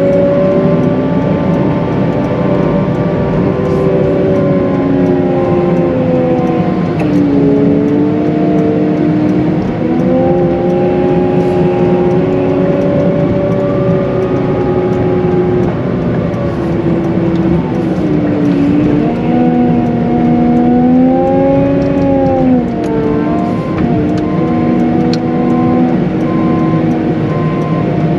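Cat 906M compact wheel loader's diesel engine running under load while plowing snow, its pitch rising and falling as the throttle and hydraulic load change. A repeating beep sounds near the end.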